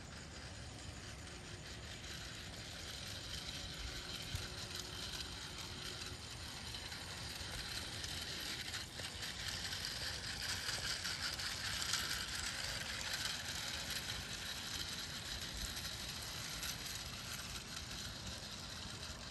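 Battery-operated toy train's small geared motor running as the train moves along the track, a steady whirring rattle that grows louder around the middle as it passes close and then fades a little.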